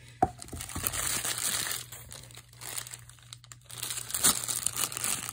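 Plastic packaging crinkling and rustling as it is handled, in irregular bursts, with a sharp click about a quarter second in.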